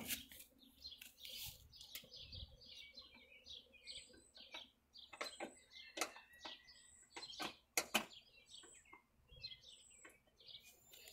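Small birds chirping steadily, with a handful of sharp clicks and knocks about halfway through from hand work on a riding lawn mower.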